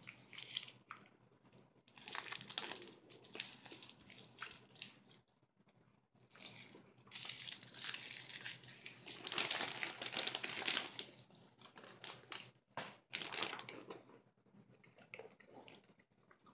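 Crinkly plastic bag of Blue Razz Blow Pops being handled, in two long stretches of crinkling and rustling with a few sharp clicks.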